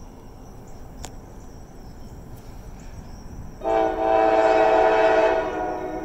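Diesel locomotive's air horn sounding one long blast of several notes at once, starting a little past halfway and fading near the end. Crickets chirp steadily underneath.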